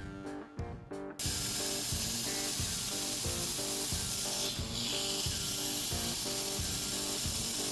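A loud, steady hiss starts about a second in and runs on over background music with a steady beat.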